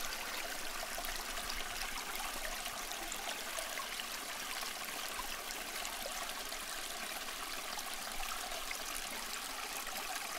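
Small stream running low over a stony bed: a steady babble and trickle of water.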